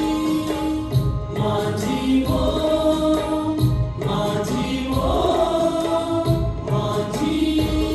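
A group of male and female singers singing together in long held, chant-like lines. Instrumental backing with a low drum beat plays underneath.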